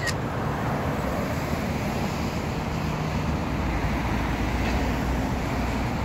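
Steady street traffic noise, with a low rumble growing a little louder about halfway through.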